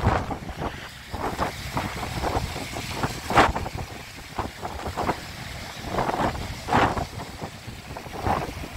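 Storm-force wind buffeting the phone's microphone in irregular gusts, a ragged rumble with sharper blasts, the strongest about three and a half seconds in and again near seven seconds.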